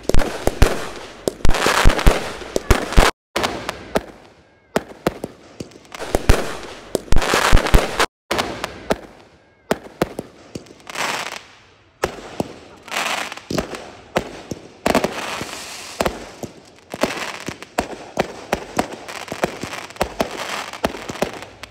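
Aerial fireworks going off: many sharp bangs in quick succession, with crackling in between. The sound drops out briefly twice, about three and eight seconds in.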